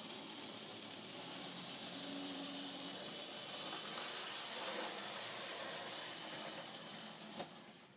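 Lima Class 55 model locomotive's pancake motor running under a newly fitted DCC decoder, a steady hissing whirr. It fades slightly, then cuts off at the end.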